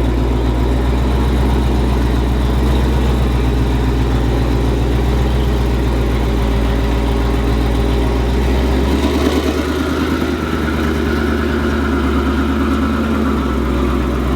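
Twin-turbo 5.2-litre V8 of a 2021 Shelby GT500 running steadily through a Corsa Extreme active cat-back exhaust with double H-pipe. About nine seconds in the note changes, the deepest part of it drops away and a higher whine comes in.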